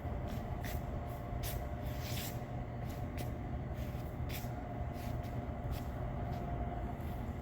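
Steady low rumble of distant vehicle traffic, with a faint steady whine and short hissing ticks now and then.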